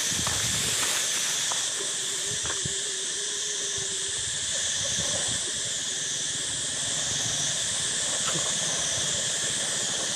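Steady, high-pitched chorus of insects with a slow wavering, pulsing edge.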